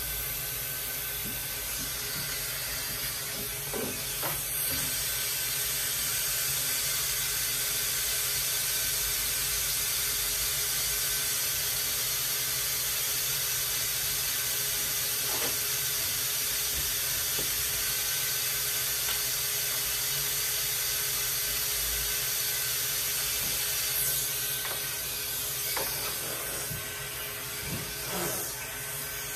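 Steady hiss of a vacuum motor running, drawing air through the hose of a clipper-vac attachment on a pet clipper. A few light knocks and scrapes sound over it near the end.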